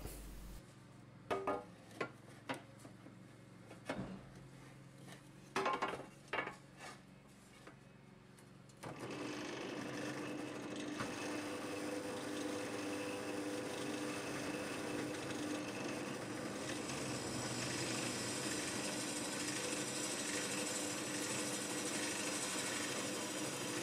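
Scattered knocks and clicks of the metal plate being handled. About nine seconds in, a bench drill press starts and runs steadily with a held hum, drilling a hole through the weld bead of a motorcycle bash plate bracket.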